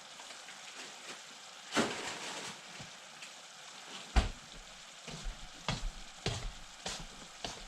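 Venison and frozen vegetables sizzling in a frying pan while a utensil stirs them, knocking against the pan: a sharp knock about two seconds in, the loudest about four seconds in, then a run of lighter clicks.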